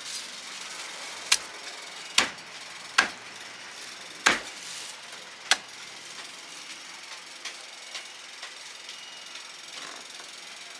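Five sharp knocks of a hard tool on a hard surface, irregularly spaced about a second apart, followed by two fainter ones, over a steady background hiss.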